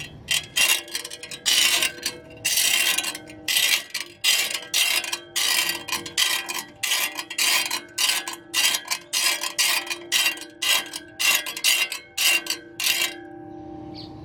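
Great States 14-inch four-blade hand reel mower worked in short strokes: a quick metallic clatter of the spinning reel's blades against the bed knife with each stroke, about two a second, over a faint steady ring. The strokes stop about a second before the end.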